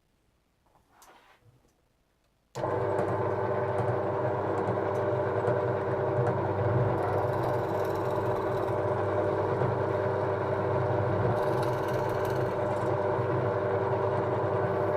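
A 500 W belt-driven bench drill press (McAllister MDPP 500S) switched on about two and a half seconds in, its motor, belts and spindle running with a steady hum. Twice in the middle, a faint hiss joins in as the bit cuts into a workpiece.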